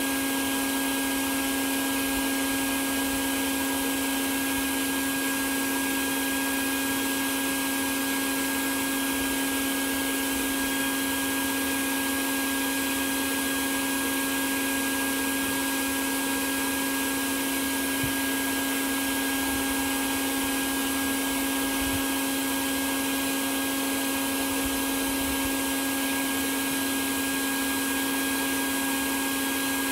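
A honeybee swarm buzzing in one steady, unbroken drone, with many bees in the air around the opened colony.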